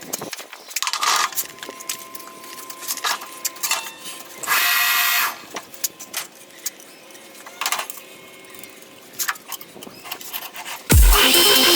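Scattered clinks and knocks of metal tools and parts being handled, with a brief harsh noisy burst about halfway through. Electronic music with a heavy beat comes in near the end.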